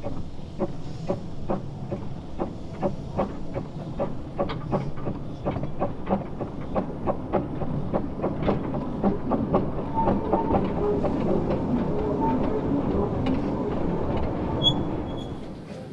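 Small steam locomotive running along the track, its wheels clicking steadily over the rail joints a few times a second over a low running rumble. Some scattered ringing tones join in during the second half.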